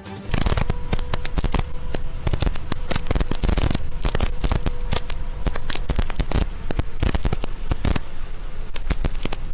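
Heavy rain pelting a moving car's windshield and roof, a dense, unbroken crackle of drop impacts as picked up by the dashcam microphone.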